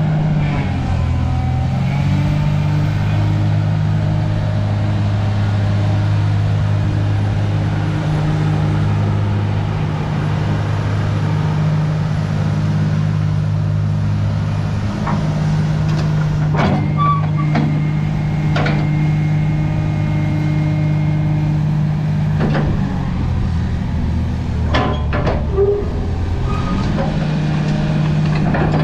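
Komatsu PC300-8 hydraulic excavator's six-cylinder diesel engine running, its pitch stepping up and down several times as it works under hydraulic load, with several sharp metallic knocks and clanks about two-thirds of the way through.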